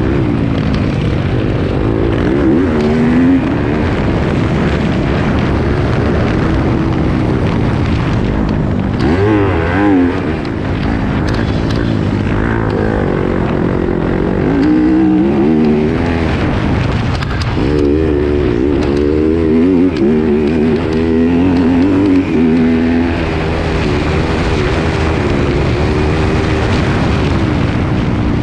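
Yamaha YZ250F four-stroke single-cylinder motocross engine under hard riding, its pitch rising and falling over and over as the throttle is worked and gears are changed.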